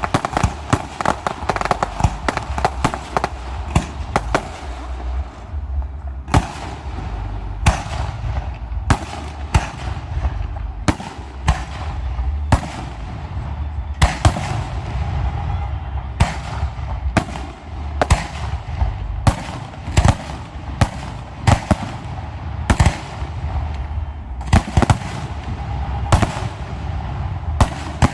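Aerial fireworks show: a dense crackle of small bursts at the start, then a steady run of separate sharp shell bursts, about one or two a second, over a low rumble.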